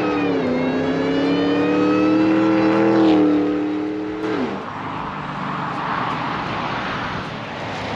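2003 Ford Lightning's supercharged 5.4-litre V8 under hard acceleration on a drive-by. The engine note dips with a gearshift at the start, climbs steadily for about four seconds, then drops away sharply. The truck then passes with a rush of tyre and wind noise.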